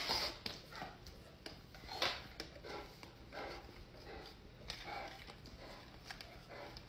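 A dog's faint, short breathy noises, coming every second or so, with a few small clicks.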